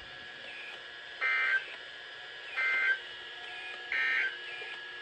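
NOAA Weather Radio SAME end-of-message data bursts: three short bursts of digital two-tone chirps about 1.4 s apart over a faint steady hiss, marking the end of the alert test broadcast.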